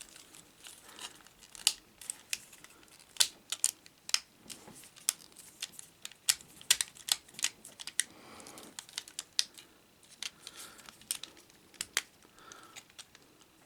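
Hard plastic parts of a Transformers action figure clicking and snapping as they are rotated, folded and tabbed into place during transformation: a run of irregular sharp clicks, sometimes several close together, with short pauses between.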